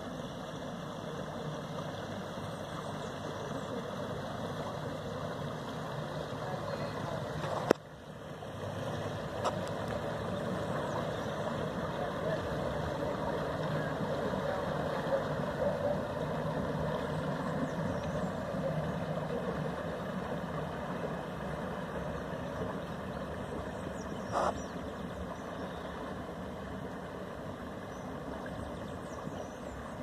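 A motor cruiser's engine running steadily as the boat passes along the river, growing louder toward the middle and easing off as it moves away. A sharp click about eight seconds in.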